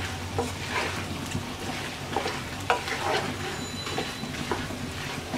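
Wooden spatula stirring and scraping chunks of beef frying in oil and spices in a nonstick pan: steady sizzling under irregular scraping strokes, one louder stroke a little past halfway.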